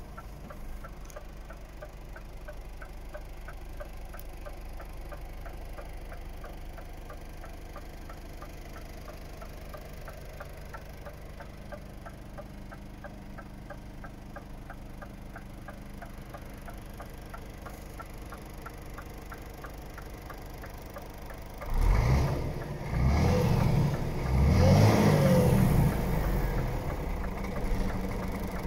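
Scania R450's 13-litre straight-six diesel idling, heard from inside the cab, with a regular light ticking over it. About three quarters of the way in, the engine is revved in several quick blips that rise and fall in pitch, much louder than the idle.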